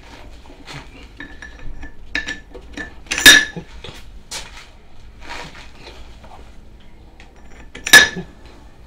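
Metal parts clinking and knocking as gloved hands handle hot cast engine cylinders and their sleeves on a steel block during shrink-fitting. There are two loud ringing clinks, about three seconds in and near the end.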